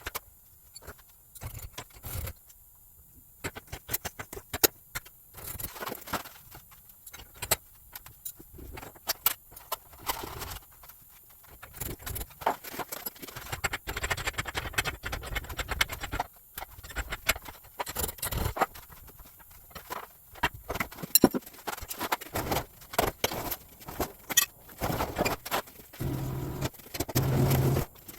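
Metal tools and garage door hardware clinking, knocking and jangling in irregular bursts during garage door cable replacement, with a low steady hum coming in about two seconds before the end.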